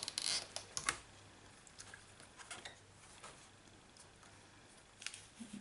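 Light clicks, taps and paper rustles as card and scrap paper are shifted on a magnetic MISTI stamp-positioning platform. There is a small cluster of them in the first second, then a few scattered ticks.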